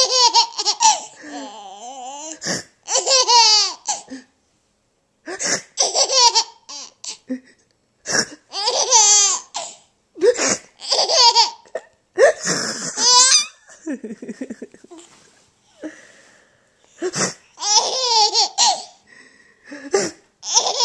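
Baby laughing in repeated high-pitched bursts, each a second or so long, with short pauses between.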